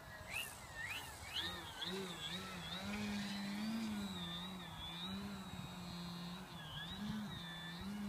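Electric motor and propeller of a Seagull EP Super Decathlon 3D RC model plane whining, its pitch rising and falling with the throttle as it hangs nose-up on its propeller in a hover. There are quick rising revs in the first second or so, and wind buffets the microphone.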